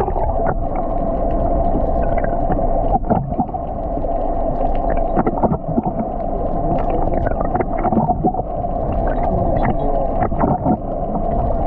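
Boat engine running with a steady hum, mixed with water and hull noise and scattered short knocks.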